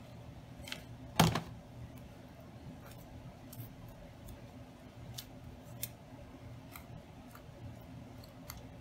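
A hot glue gun set down on the table with one loud knock about a second in, then faint scattered clicks of hands pressing and handling a metal hair clip glued to a ribbon bow, over a low steady hum.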